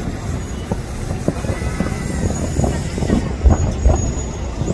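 Fireworks bursting: a run of sharp bangs and low booms, the loudest two about three and a half seconds in, over a steady rumble of street traffic.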